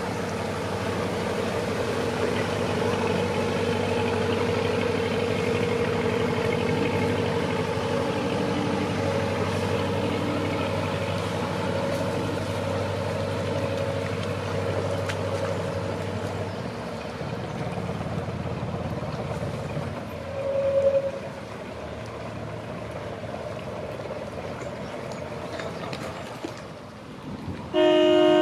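Inboard engines of river cruisers passing at low speed, a steady hum that fades away about two-thirds of the way through. A brief toot comes about 21 seconds in, and a loud, steady horn note starts just before the end.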